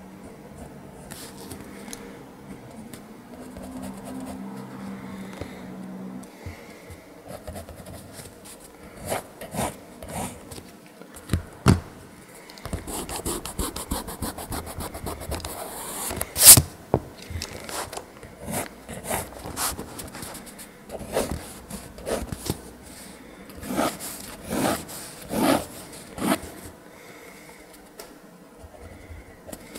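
Pentel GraphGear 1000 mechanical pencil scratching across sketchbook paper in short, irregular strokes, with an eraser rubbing over the paper around the middle. One sharp knock about halfway through is the loudest sound.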